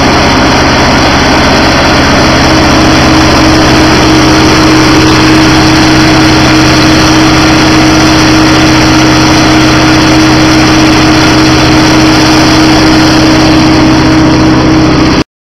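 Mesquite mill running loud and steady, grinding mesquite pods into flour, with a constant hum under a dense rushing noise. It cuts off suddenly near the end.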